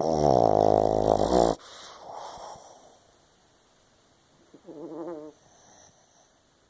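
A pug snoring in its sleep: a loud, pitched snore about a second and a half long, then a softer breath out, and a shorter, quieter snore about four and a half seconds in.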